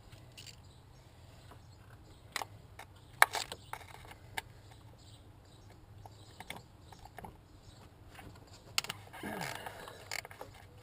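Hand tools and metal parts being worked in an engine bay: scattered clicks and clinks, with a louder knock about three seconds in and a short rattle near the end.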